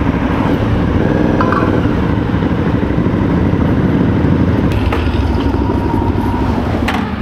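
Motorcycle engine running steadily on the move, with rough wind noise over it and a couple of short clicks near the end.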